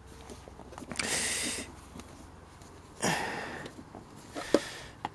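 Two short, sharp sniffs or breaths close to the microphone, about two seconds apart, and a single sharp click near the end.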